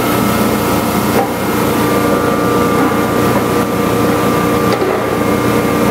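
Steady drone of running industrial machinery: an electric-motor hum with several steady tones over a constant noisy wash.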